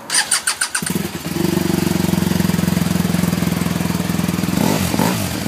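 Starter cranking the liquid-cooled boxer twin of a BMW LC motorcycle with quick ticks for under a second, then the engine catching and settling into a steady idle on the standard exhaust.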